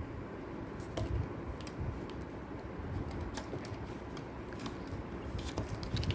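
Scattered light clicks and taps of small metal construction-kit parts (perforated strips, nuts and bolts) being handled and fitted together.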